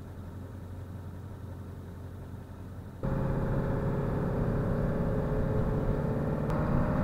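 Faint low hum, then about three seconds in the steady engine and road noise of a diesel 2002 Ford E450 truck driving up an on-ramp starts suddenly and runs on with a steady drone.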